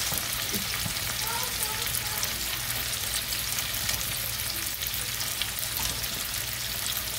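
Chicken and vegetables sizzling steadily in a frying pan on a gas burner, with a fine continuous crackle.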